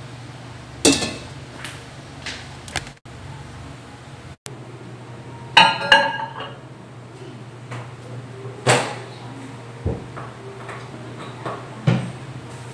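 Cookware and dishes being handled: scattered knocks and clinks of pans and crockery, one clink about halfway through ringing briefly, over a steady low hum.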